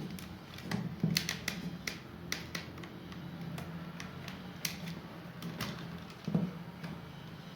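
Irregular small clicks and taps of plastic and metal parts being handled as a hair dryer's two-speed switch contact is fitted back into place.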